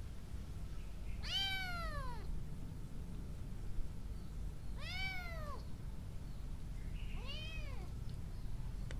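Kitten meowing three times, a few seconds apart, each call rising and then falling in pitch.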